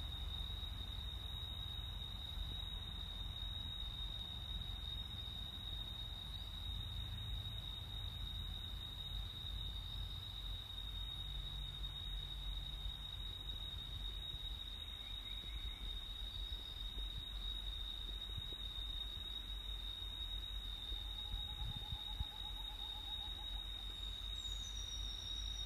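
A steady, high-pitched insect drone, one unbroken tone, over a constant low rumble, with a few faint short calls, one of them falling near the end.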